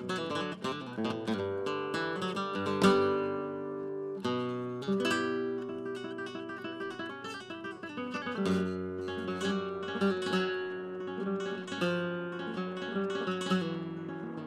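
Background music: acoustic guitar, plucked and strummed, with a steady run of quick notes and chords.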